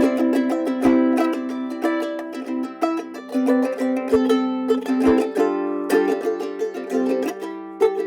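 Soprano ukulele with a Sitka spruce top and pernambuco back and sides, played solo with many quick plucked notes and chords.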